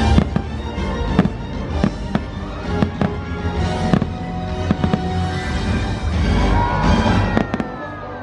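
Aerial firework shells bursting in an irregular run of sharp bangs, about one or two a second, over the show's music playing from loudspeakers.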